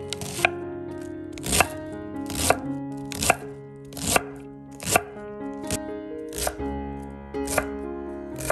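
Chef's knife shredding cabbage on a wooden cutting board: about ten even crisp cuts ending in a knock on the board, a little more than one a second, over background music.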